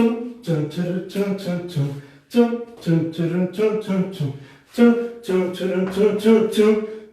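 A man singing a tune unaccompanied in short, clipped syllables, in several phrases with brief pauses.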